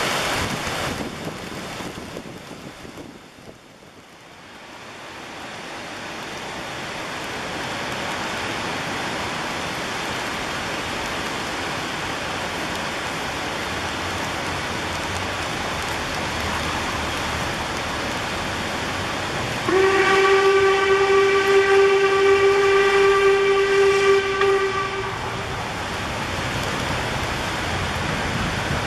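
Steam locomotive whistle sounding one long, steady blast of about five seconds, starting about two-thirds of the way in, over a steady rush of river water and rain.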